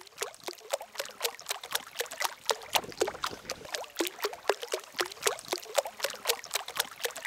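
Water drops plopping onto a river's surface, an irregular patter of short plinks several a second.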